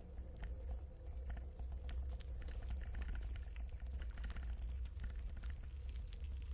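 Bicycle tyres rolling over a gravel trail: a dense run of irregular small crunches and ticks over a steady low rumble.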